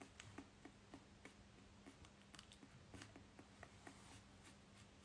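Near silence with faint, irregular small clicks and ticks, about three a second, over a low steady hum.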